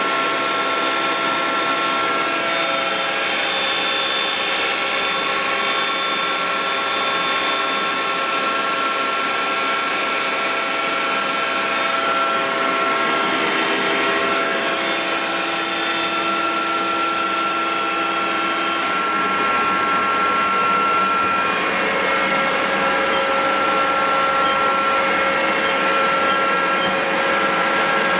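Mori Seiki NL1500 CNC lathe running with its spindle at high speed (about 4,000 RPM): a steady machine whine made of several steady tones, with some of the tones changing about two-thirds of the way through.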